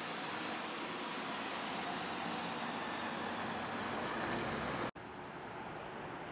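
City bus driving past, a steady engine and tyre noise that swells slightly. It cuts off abruptly about five seconds in, and quieter, duller street traffic noise takes over.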